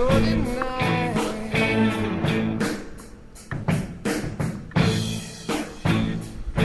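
Background rock music with a steady drum beat over bass; the music dips briefly about halfway through.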